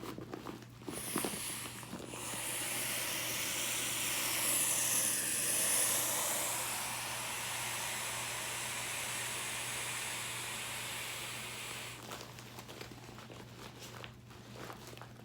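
Air hissing out of an inflatable beach ball's open valve as it deflates: a steady hiss that starts about a second in, swells a little, then cuts off near the end, followed by a few faint rustles of the vinyl.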